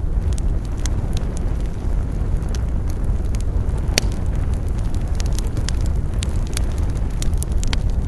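Wood campfire burning with a steady low rumble and irregular sharp crackles and pops, one louder pop about halfway through.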